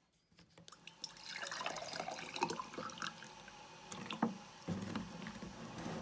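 Water being poured from a plastic bottle into a drinking glass until the glass is full, starting about a second in.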